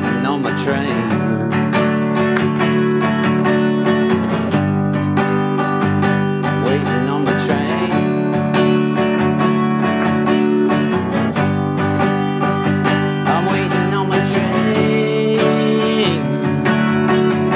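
Acoustic guitar strummed steadily in a song's instrumental passage, over held backing notes, with a melody line that bends in pitch now and then.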